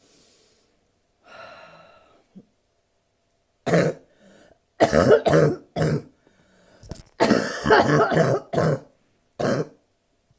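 Woman's harsh barking cough from bronchitis: a fit of repeated hard coughs starting about four seconds in, several in quick runs, with the longest run near the end.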